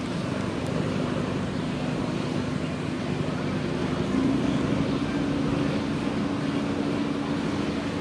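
Steady engine drone with a humming tone that grows louder about four seconds in, over a constant rush of wind and water noise.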